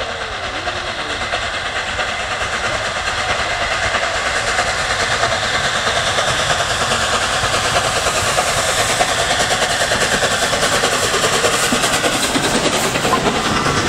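LNER A3 Pacific steam locomotive Flying Scotsman running under steam, its exhaust getting louder as it approaches and draws level. Near the end the coaches roll past with wheels clicking over the rail joints.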